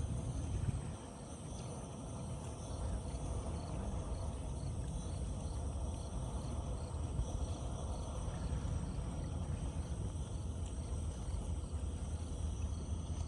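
Crickets chirping steadily, about two chirps a second, over a low wind rumble on the microphone.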